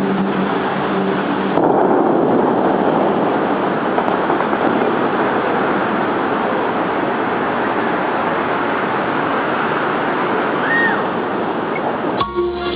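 Steady splashing noise of the Bellagio fountain's water jets falling back into the lake. The last sung notes of one song fade out just after the start, and the guitar of the next song comes in near the end.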